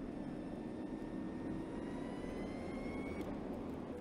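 Audi Q4 e-tron electric SUV driving, its tyres and road noise making a steady rush, with a thin electric-drive whine that climbs steadily in pitch as the car accelerates and cuts off about three seconds in.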